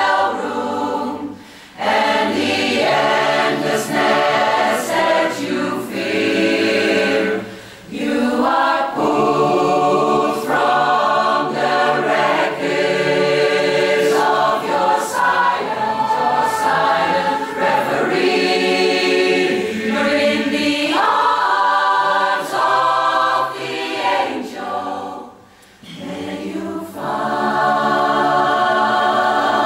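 A large mixed choir singing a cappella in harmony, in long phrases broken by brief pauses about two seconds in, near eight seconds and near twenty-six seconds.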